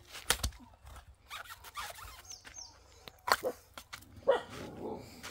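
A large knife chopping into the top of a pared tender green coconut to cut it open: a sharp strike shortly after the start, then two more strikes about a second apart later on, with smaller knocks between.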